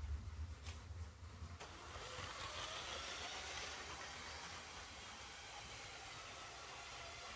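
Lego trains running on plastic track: a faint, steady whirring rattle of wheels and small motors. A low rumble in the first second and a half gives way to the whir.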